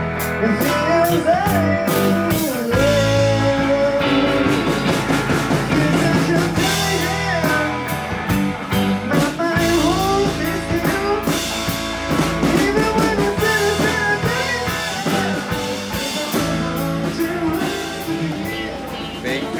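Rock-and-roll music with a drum kit and a singing voice, with a steady beat.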